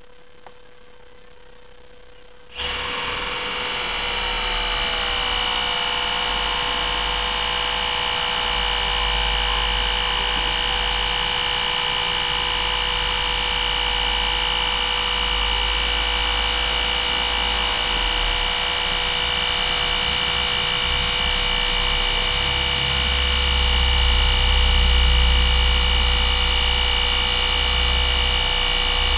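Electric motor whine of a radio-controlled model dump truck, starting abruptly about two and a half seconds in and running steadily with a high whine over a low rumble, after a faint steady hum.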